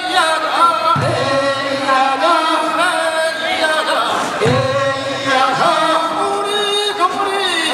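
Men's chorus singing a Korean fishermen's work song unaccompanied, long held notes sliding in pitch.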